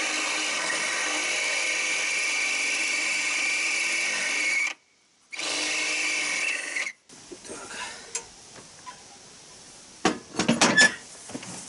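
Cordless drill boring a hole through a metal plate: a steady high whine for about five seconds, a short pause, then a second run of about a second and a half. A few sharp metal clanks follow near the end as the cart frame is handled.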